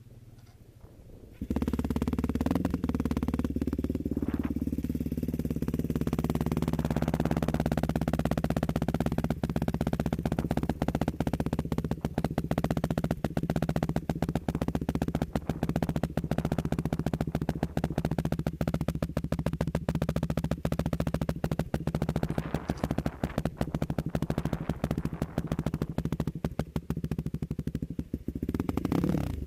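Yamaha YFZ quad's engine running, coming in abruptly about a second and a half in and then holding a fairly steady pitch with a rapid, even pulse.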